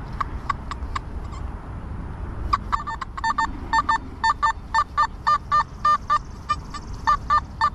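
Nokta Simplex Ultra metal detector sounding short target-tone beeps as its search coil sweeps over test targets, some beeps at a higher second pitch. After a brief lull they come quickly, about three or four a second.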